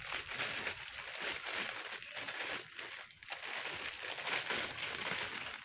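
Plastic packaging crinkling and crackling as it is handled and opened by hand, with a short lull about three seconds in.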